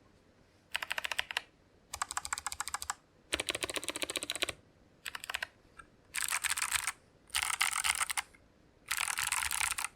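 Typing on a mechanical keyboard with Kailh Box Jade clicky switches: seven quick runs of rapid, crisp keystroke clicks with short pauses between them.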